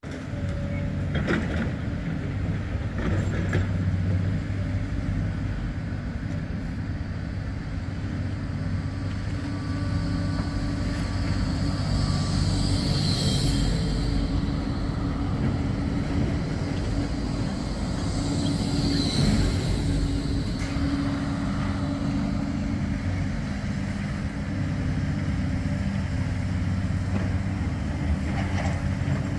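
Bombardier Flexity 2 tram passing close by at low speed, held to about 10 km/h by a speed restriction, over a steady low rumble. There are two short high-pitched sounds, about six seconds apart, as it goes by.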